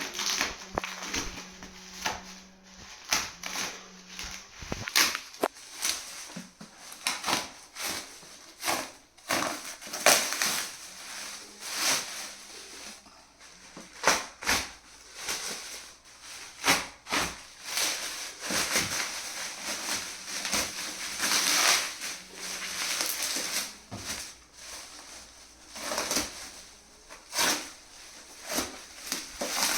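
Packaging of a new vacuum cleaner being handled and torn open: an irregular run of crackling, rustling and tearing.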